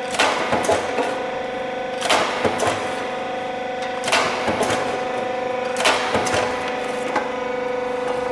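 TITAN SPLASH automatic brick splitter cutting concrete slabs: its motor hums steadily while the blade strikes four times, about two seconds apart. Each strike gives a sharp crack followed by a few smaller knocks as the split concrete pieces drop.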